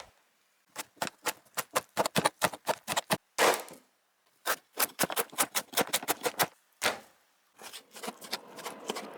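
Kitchen knife chopping vegetables on a cutting board in quick, rapid strokes, several a second. The chopping pauses about seven seconds in, then resumes with softer, quicker cuts.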